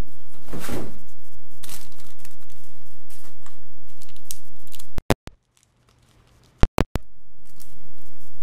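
Clear plastic packaging bag rustling and crinkling as an action figure is pulled out and handled, with scattered small clicks. About five seconds in the sound cuts out for roughly two seconds, with sharp clicks at either end of the gap.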